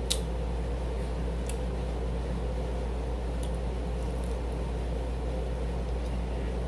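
A steady low hum of room noise with a few faint, sharp clicks from eating.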